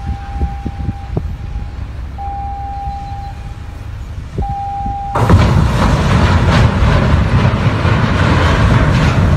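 A ship's horn sounds three separate blasts of about a second each as two cargo ships close on each other in a canal. About five seconds in, a sudden loud, rough rumbling noise starts and drowns everything else.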